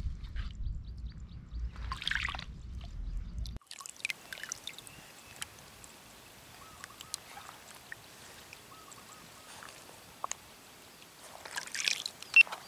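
Wind rumbling on the microphone for the first few seconds, cutting off suddenly to a quiet background of small water ripples lapping, with scattered faint clicks.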